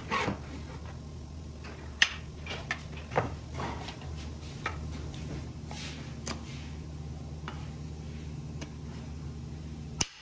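Several sharp wooden knocks and clicks as CNC-cut plywood table parts are handled, knocked against one another and slotted together on a workbench, over a steady low hum.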